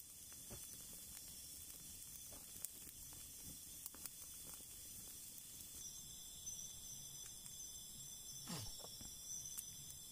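Wood campfire burning with a faint steady hiss and scattered pops and crackles. From about six seconds in, a steady chirring of night insects such as crickets joins.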